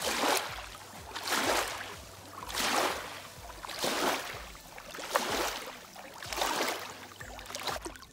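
Small lake waves lapping and washing onto a sandy, rocky shore, with a surge of wash about every second and a quarter, seven in all.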